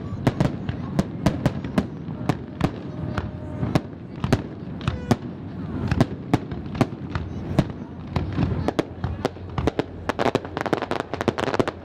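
Aerial fireworks shells bursting in quick, irregular succession, each a sharp bang or crack. About ten seconds in, the bursts thicken into a dense run of rapid crackling.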